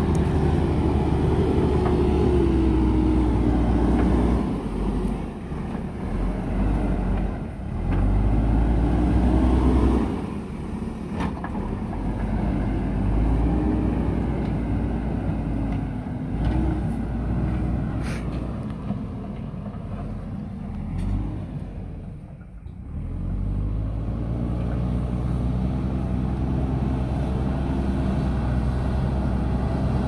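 JCB 3DX backhoe loader's diesel engine working under load, revving up and easing off again several times as the front bucket pushes soil.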